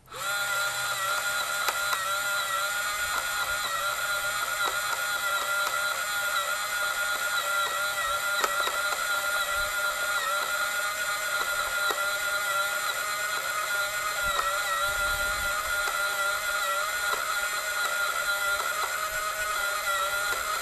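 Electric motor of a DIY 25 mm pipe feeder running steadily, a constant whine with several fixed tones, as it delivers feed from the hopper at about a litre a minute. Faint scattered ticks run through it.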